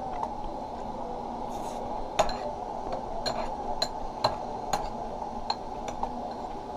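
Metal utensil clinking and scraping against a white ceramic bowl while picking up chicken, about eight sharp clinks at irregular intervals. A steady low background hum runs underneath.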